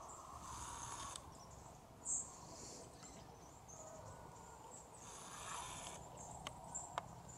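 Faint outdoor ambience with short, high-pitched chirping trills coming and going, and a few soft clicks near the end.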